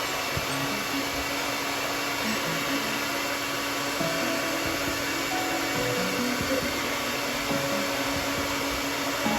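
Hair dryer running steadily, a continuous rush of blown air over a low motor hum.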